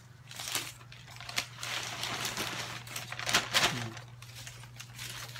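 Paper banknotes rustling and crinkling as folded bills are handled and unfolded, with a few sharper crackles, over a steady low hum.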